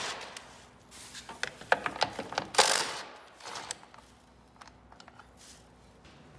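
Scattered metallic clicks and clanks of hand tools at work on the car's doors as they are unbolted, with a louder brief rush of noise near the middle, then only faint clicks.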